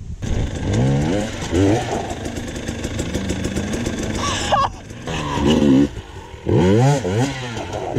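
Two-stroke KTM dirt bike engines revving up and down in repeated surges under throttle, with short bursts of revs a few times.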